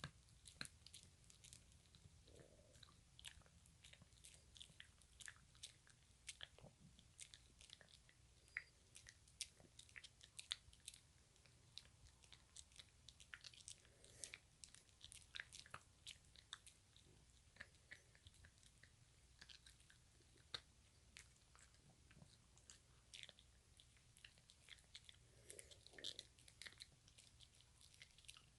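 A puppy gnawing and chewing on a dog chew: faint, irregular crunching clicks from its teeth, several a second.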